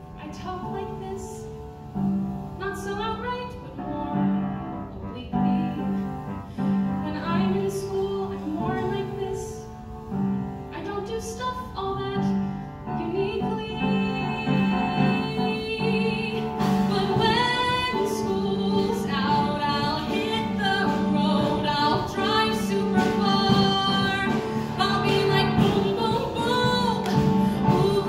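A woman singing solo into a microphone, accompanied by an upright piano playing repeated chords. It starts softly and builds louder through the song.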